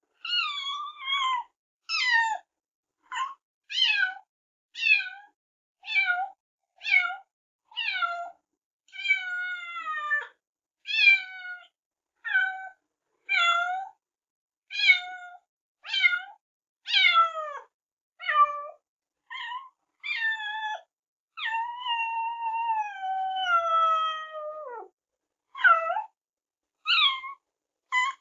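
A domestic cat meowing over and over, about one meow a second, each call mostly falling in pitch, with a long drawn-out meow about three quarters of the way through. The meows are separate recordings strung together with dead silence between them.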